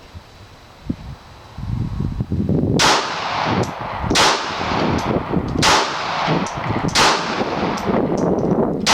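Glock 42 .380 ACP pistol firing five rounds of Hornady Critical Defense, one shot about every second and a half, cycling each round without a stoppage. Fainter sharp cracks come between the shots.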